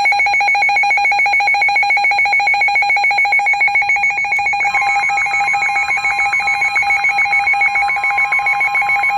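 Emergency alert attention tone sounding for a severe thunderstorm warning: a loud, rapidly pulsing electronic tone, steady in pitch, with a second steady tone joining about halfway through.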